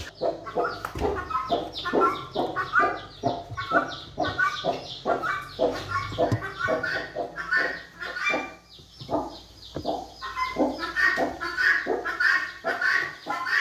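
Hens clucking, a steady run of short repeated calls, about three a second.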